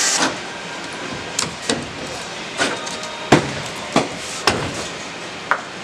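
A cordless drill whirs and cuts off right at the start. Then come a series of irregular sharp knocks, about seven, from a metal hand tool striking the edge of a fiberglass boat hull and cap, with one louder knock midway.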